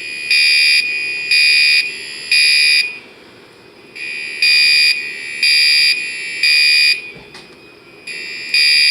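System Sensor SpectrAlert Classic fire alarm horns sounding the temporal-three evacuation pattern: three half-second horn blasts about a second apart, a pause, then three more, with the next group starting near the end.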